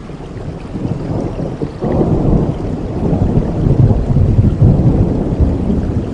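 Thunder rolling: a deep rumble that swells sharply about two seconds in and keeps rumbling loudly.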